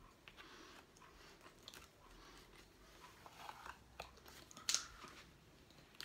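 Faint handling noises from a black dive mask being held up, then pressed onto the face and adjusted by hand: scattered soft rubbing and small clicks, the loudest about three-quarters of the way through.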